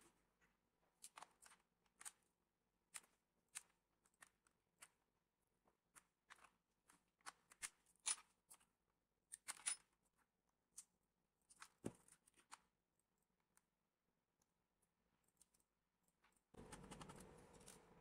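Scattered light plastic clicks and snaps from a Dell P40F laptop's keyboard and case being pried apart and handled, with a sharper snap about eight seconds in and a dull knock a few seconds later. A steady low hiss comes in near the end.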